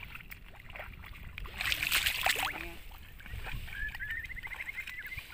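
Wind rumbling on the microphone, with a louder rush of noise about two seconds in. A rapid chirping trill starts near the end.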